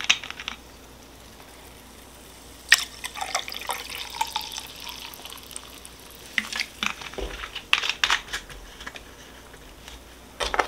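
Seltzer being poured into a tall glass over chocolate syrup and half-and-half, splashing as the drink foams up. A sharp click about two and a half seconds in starts the pouring, and another comes near the end.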